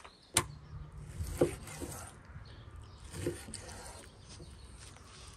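Large kitchen knife slicing raw beef liver on a thick wooden cutting board: a few soft knocks, about two seconds apart, as the blade cuts through and meets the board.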